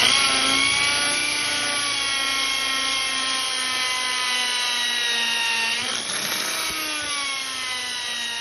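Electric drill with a small 3–4 mm bit boring into a Toyota Corolla's brake caliper: a steady motor whine that sags slowly in pitch under load, dips about six seconds in, then picks up again and holds.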